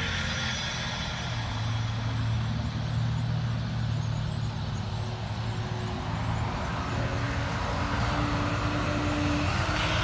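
Road traffic moving through a roundabout: car and truck engines and tyre noise running steadily, with one engine note held for a few seconds near the end.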